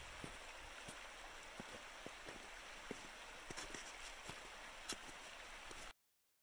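Shallow creek running over its stony bed: a faint, steady rush of water with scattered small ticks and gurgles. It cuts off abruptly near the end.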